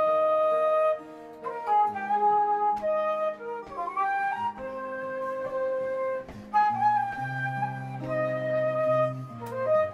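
Side-blown wooden flute playing an Irish tune over acoustic guitar accompaniment. It opens on a long held note, dips briefly about a second in, then carries on with a moving melody over the guitar's lower notes.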